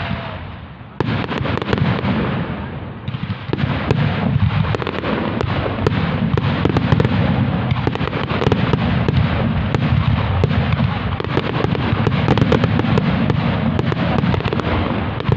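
Fireworks display going off in a dense, almost continuous barrage of bangs and crackling. There is a short lull at the start, then a sudden loud burst about a second in.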